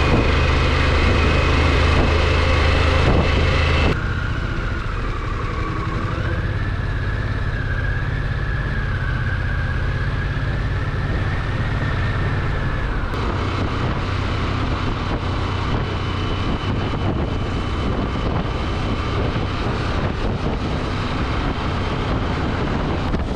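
Harley-Davidson Pan America's V-twin engine running as the motorcycle rides through slow traffic, with wind and road noise picked up by a bike-mounted camera. The sound changes abruptly about four seconds in and again near the middle, and a whine rises about six seconds in.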